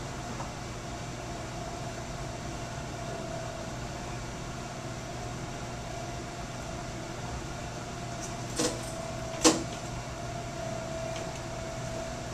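Steady hum of x-ray room equipment with a constant faint tone, broken by two sharp clicks about a second apart, about two-thirds of the way in.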